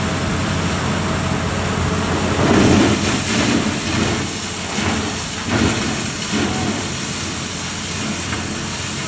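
A well-drilling rig's engine running steadily under a hissing rush of water and air from a newly drilled borehole. The rush surges louder twice, about two and a half and five seconds in.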